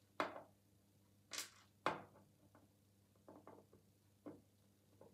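Faint, separate clicks and taps of small brass lock pins being tipped out of a Euro cylinder plug and set down in a plastic pinning tray, the sharpest click about two seconds in.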